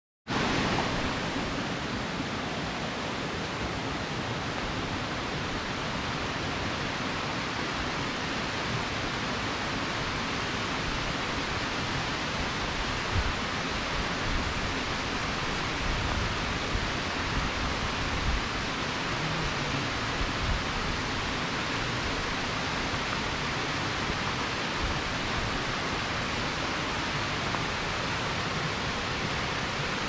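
A narrow waterfall and the small cascade below it, giving a steady, even rush of falling water, with a few soft low thumps around the middle.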